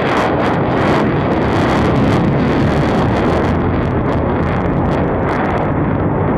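Lockheed Martin F-35A's single Pratt & Whitney F135 turbofan at high power as the jet pulls hard through a turn. The jet noise is loud and steady, with a rapid crackle that thins out near the end.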